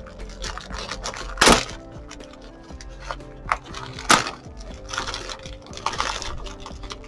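Plastic packaging crinkling and crackling as a bag is worked open by hand, with two sharp loud crackles about a second and a half and four seconds in. Soft background music plays underneath.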